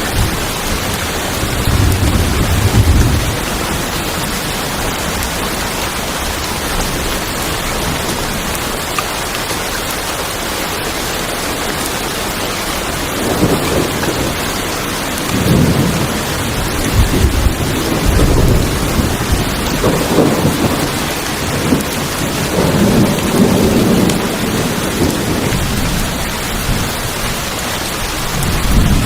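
Steady heavy rain drumming on a tin roof, with thunder rumbling low about two seconds in and again in several rolling swells through the second half.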